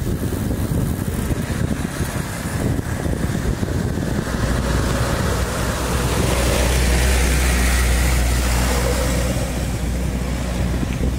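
Wind rushing over the microphone while riding, with a dump truck's diesel engine growing louder as it passes close by, loudest about seven seconds in.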